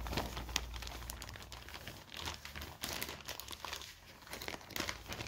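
Plastic flour bag crinkling and rustling in the hand as it is tipped to pour flour into a bowl, with irregular small crackles.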